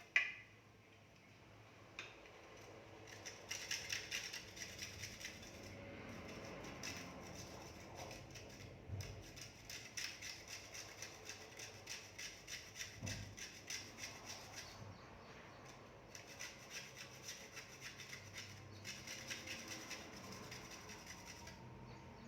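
An almond being grated by hand on a small grater: quick rhythmic rasping strokes, a few a second, with short pauses along the way. There is a short knock at the very start.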